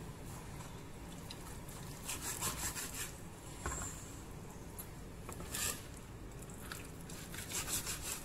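Kitchen knife sawing through a slab of boiled beef fat against a cutting board, in short runs of scraping strokes about two, five and a half and eight seconds in, over a steady low hum.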